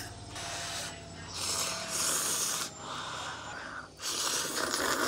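A person slurping kimchi noodles from a bowl: about four long, noisy slurps, each roughly a second, with short pauses between.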